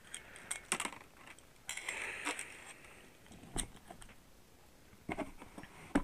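Handling noises of an electric heat gun and its hard plastic carrying case: scattered light clicks and knocks, with a short rustle about two seconds in and a sharper click about halfway through.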